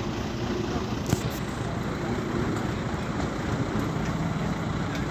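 A vehicle engine running steadily, with a sharp click about a second in.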